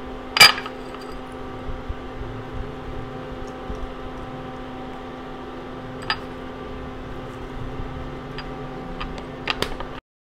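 Steady machine hum made of several constant tones, with a sharp click about half a second in, another around six seconds, and a few small clicks near the end; the sound stops abruptly just before the end.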